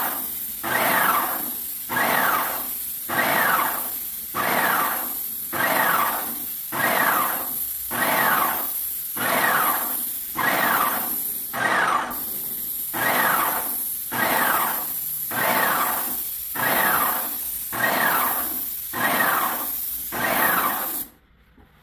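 Graco X5 electric airless paint sprayer spraying through a 310 tip at low pressure. A steady high hiss from the spray tip runs over a pulsing whine that falls in pitch about once a second. The spray cuts out for a moment near the middle and stops just before the end.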